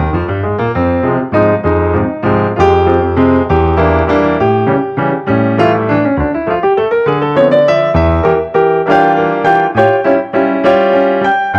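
Background piano music with a steady stream of notes over held low notes.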